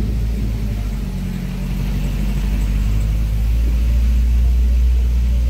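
Car engine and road noise heard from inside the moving car's cabin: a steady low rumble that grows a little louder a few seconds in.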